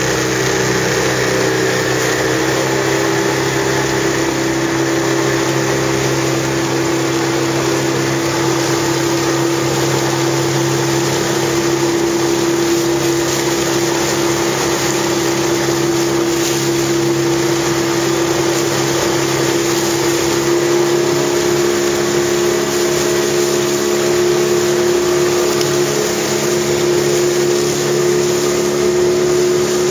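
A motorboat's outboard engine running at a steady speed, with a constant hum of engine tones over a steady hiss of water and air.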